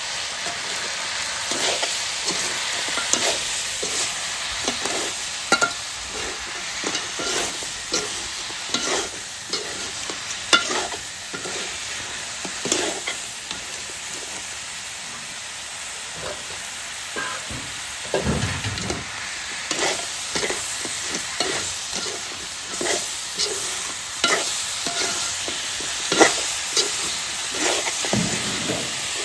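Crab pieces frying in a pan: a steady sizzle, with irregular clicks and scrapes as a spoon stirs them against the pan.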